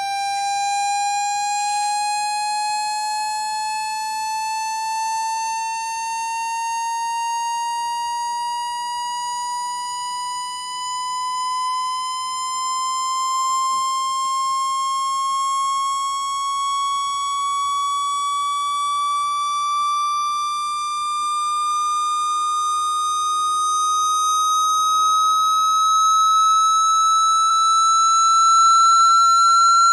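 Generated water-ejection tone for clearing water from a phone speaker: a single buzzy tone whose pitch climbs slowly and evenly, with no breaks, getting slightly louder near the end.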